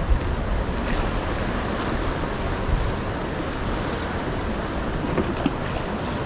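Sea water washing against a harbour breakwater, with wind rumbling on the microphone, heaviest at the start. A few faint clicks come near the end.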